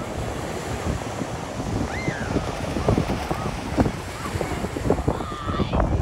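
Ocean surf washing on the beach under strong wind, with gusts buffeting the microphone in a heavy low rumble.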